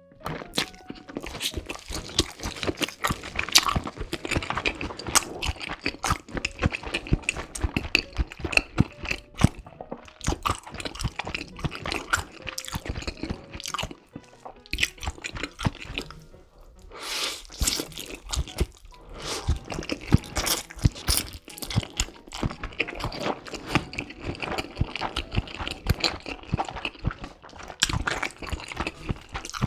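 Close-miked crunching and chewing of a crispy fried pork cutlet with a Flamin' Hot Cheetos crust, a dense run of crackly bites. The bites let up briefly about halfway through.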